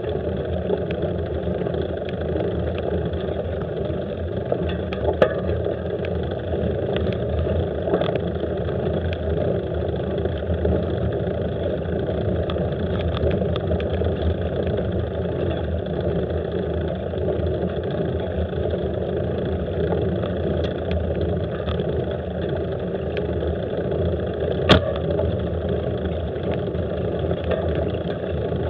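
A vehicle driving slowly on a gravel road: steady engine and tyre noise, with a few sharp clicks, the loudest near the end.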